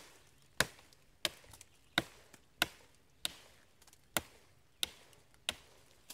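TOPS American Trail Maker chopping knife striking a thin sweet gum sapling in a steady rhythm of light chops, about eight sharp knocks, roughly one every two-thirds of a second.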